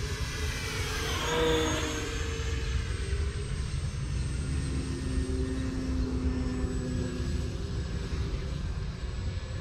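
RC airplane's electric motor and propeller whining. It makes a close, louder pass about a second and a half in, with the pitch sweeping up and then down, and then runs on more steadily farther off. A steady low rumble sits underneath.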